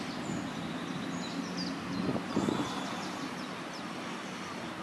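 Outdoor railway-platform ambience: a steady background hiss with small birds chirping now and then, and a brief louder sound about two seconds in.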